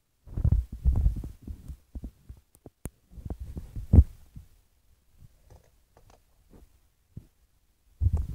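Irregular low thumps and rumbling close to the microphone, with a hard knock about four seconds in and a short click just before it; the knocks fade to a few faint taps, then the thumping picks up again near the end.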